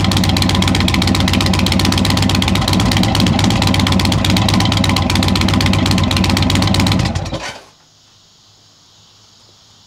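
2022 Indian Chieftain Limited's Thunder Stroke 116 V-twin idling steadily through Rinehart slip-on mufflers with a loud, low rumble, then stopping about seven and a half seconds in.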